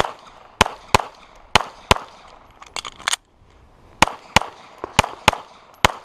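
Compact carry pistol firing a string of about eleven shots, mostly in quick pairs about a third of a second apart. The shots are double-taps on successive targets, with a roughly one-second pause after the middle.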